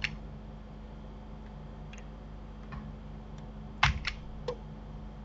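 Computer keyboard keystrokes: a few scattered key clicks, the loudest a quick pair about four seconds in, over a steady low hum.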